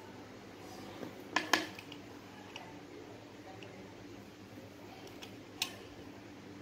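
Steel padlock being handled and its shackle opened: two sharp metallic clicks about a second and a half in, a few lighter ticks after, and another sharp click near the end.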